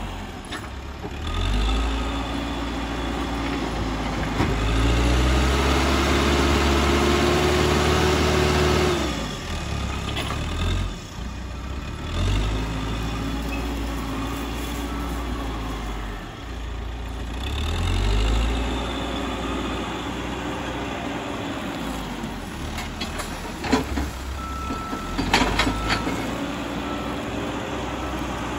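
Caterpillar 434E backhoe loader's diesel engine working under load: it revs up and holds high for several seconds as the front bucket pushes earth, drops back, then revs up twice more. A few sharp knocks come near the end.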